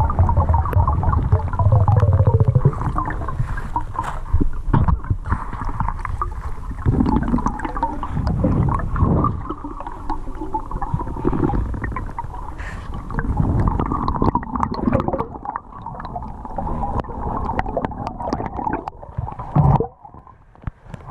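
Muffled underwater noise of river water and gurgling air bubbles, picked up through a GoPro's waterproof housing, with scattered clicks and knocks; it drops away near the end.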